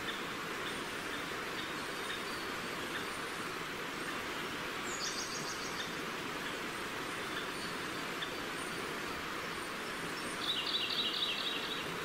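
River water flowing steadily, with small birds singing over it: short high chirps repeated through the first half, a rapid trill about five seconds in, and a louder trill near the end.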